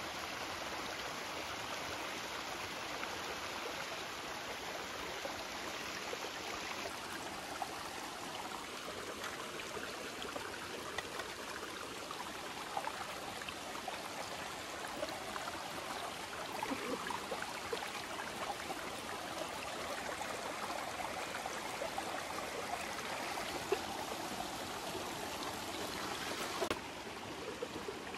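Shallow mountain stream running over rocks, a steady rush of water.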